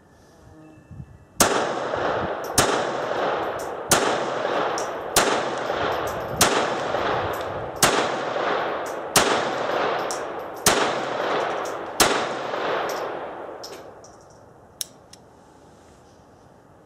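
CZ-27 pistol in 7.65 mm Browning (.32 ACP) firing nine shots in a steady slow string, about one every one and a half seconds, each crack echoing under the covered firing line. It fires all nine rounds with no stoppage.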